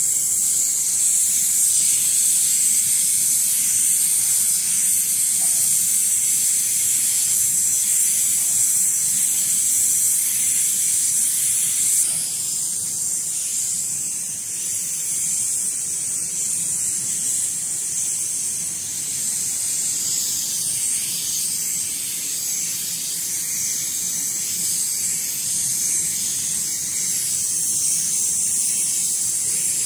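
Steady high-pitched hiss of a hot air PVC welding machine's air jet as it heat-welds the PVC tape spirally onto flexible ducting. It dips a little in level about twelve seconds in.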